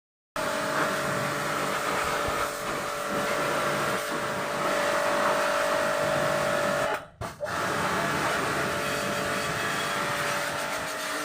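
A vehicle engine running steadily with a held whine. It cuts off briefly about seven seconds in, then resumes.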